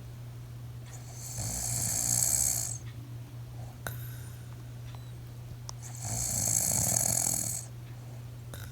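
A sleeping person snoring: two long snoring breaths about five seconds apart, each lasting about a second and a half, over a steady low hum.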